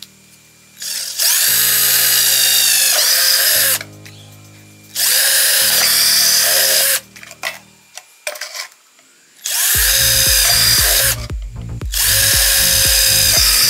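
Cordless drill running in four short bursts, its twist bit boring holes through plastic jar lids.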